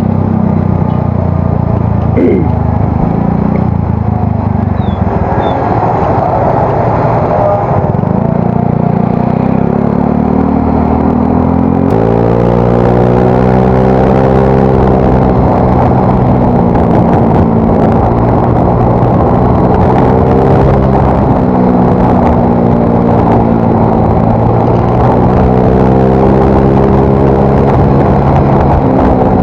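Yamaha Mio Soul GT scooter's single-cylinder four-stroke engine running through an aftermarket exhaust while riding. It runs steadily at first, then about twelve seconds in the revs climb and rise and fall several times with the throttle.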